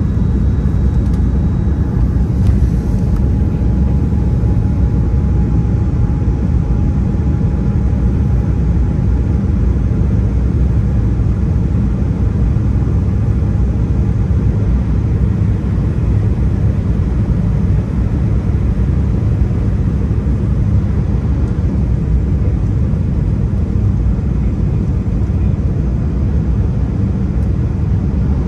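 Steady airliner cabin noise: a loud, even low rumble of the jet engines and airflow on the fuselage, with a faint thin whine in the first several seconds.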